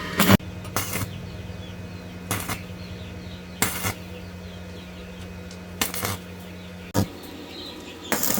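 Sharp metal clinks and taps at irregular intervals, some in quick pairs, as metal pieces or tools are handled and set down, over a steady low hum that stops about seven seconds in.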